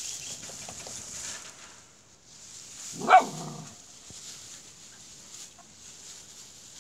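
A Komondor gives one short, sharp bark about three seconds in.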